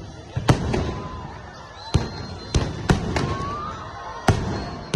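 Aerial fireworks bursting: a series of about eight sharp bangs at irregular intervals, each trailing off in a reverberant rumble.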